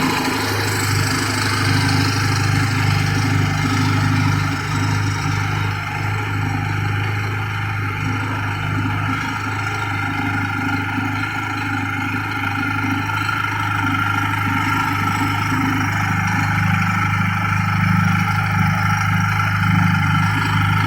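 Benelli TNT 250 twin-cylinder motorcycle engine idling steadily, with only slight swells in its note.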